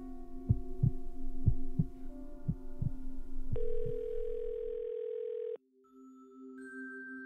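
Heartbeat sound effect: paired low thumps about once a second over a steady hum, with a long held tone. The heartbeat stops about four seconds in, the tone cuts off suddenly a second and a half later, and soft bell-like music begins.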